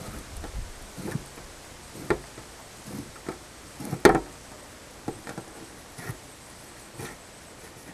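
Kitchen knife scoring a scaled grey mullet: a series of short clicks and taps, roughly one a second, as the blade cuts through the scaly skin and knocks the surface beneath, the loudest about halfway through.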